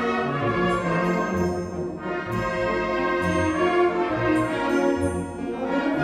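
Orchestral background music, brass to the fore, playing a slow melody over sustained bass notes.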